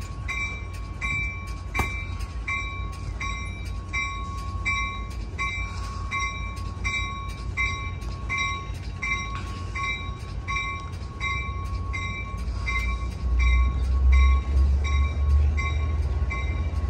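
Passenger train's bell ringing steadily about twice a second as an Amtrak San Joaquin train moves out of the station. Underneath is the low rumble of the bilevel cars rolling past, which grows louder near the end.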